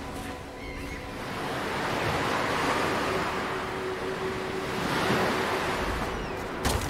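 Ocean waves washing onto a shore, swelling twice, with a faint held tone underneath. A short sharp knock comes near the end.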